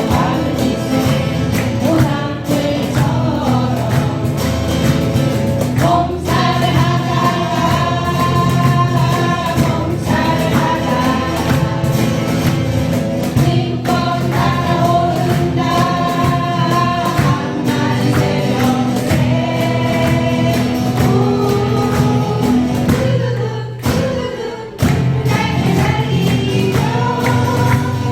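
Acoustic guitars strumming as several voices sing a song together, with a brief break in the music a few seconds before the end.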